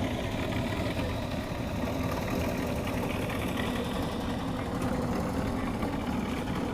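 An idling engine: a steady low rumble.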